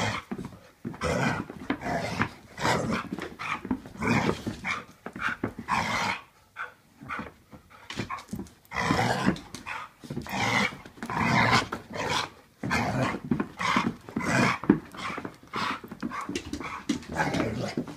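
Two dogs, an adult and a puppy, play-fighting, with quick irregular bursts of dog vocalizing and scuffling throughout.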